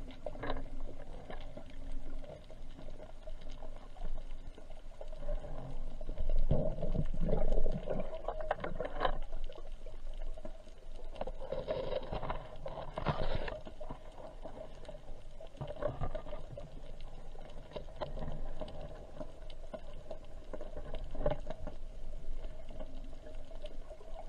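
Underwater sound heard through a camera's waterproof housing as a freediving spearfisher swims: muffled water rushing and knocking with scattered sharp clicks over a steady hum. The rushing swells louder twice, about six to nine seconds in and again around twelve to thirteen seconds.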